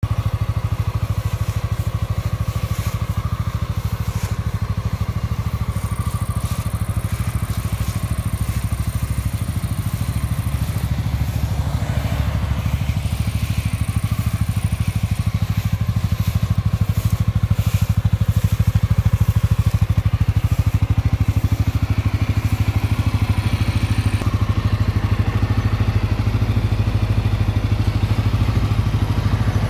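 CFMOTO CForce 625 ATV's single-cylinder four-stroke engine idling steadily while the quad stands still.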